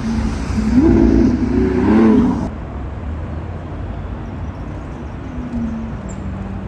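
Low steady rumble of road traffic, with some wavering pitched sounds in the first two seconds before it drops abruptly to a quieter, even rumble.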